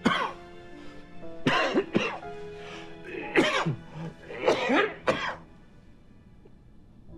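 A man coughing repeatedly into a handkerchief: a fit of coughs in several short spells over about five seconds, then stopping. Soft background music with held notes runs underneath.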